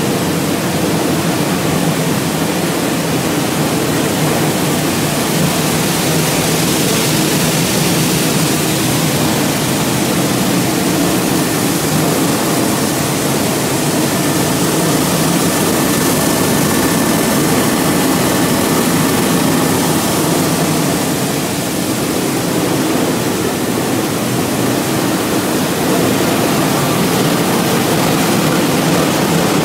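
Machinery of a corn flake extrusion production line running: a loud, steady mechanical noise from the motors and vibrating conveyors, with no breaks or changes.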